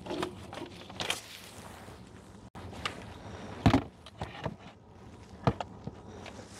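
Scattered knocks and clicks of handling: a 12-volt car plug pushed into a portable power station's socket, and a small portable rice cooker picked up and set down, with the two loudest knocks about four and five and a half seconds in.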